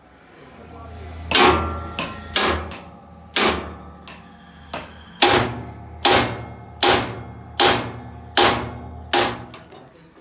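Hammer blows on a steel part: about a dozen sharp, ringing strikes at an uneven pace, roughly one every half to one second, over a steady low hum.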